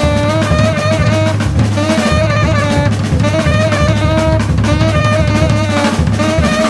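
Saxophone and drum kit playing together: a busy drum groove of snare, rimshots and bass drum under a saxophone line of long held notes.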